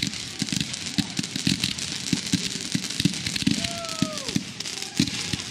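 Fireworks crackling and popping: a rapid, irregular string of sharp bangs and crackles, with a short falling tone about two-thirds of the way through.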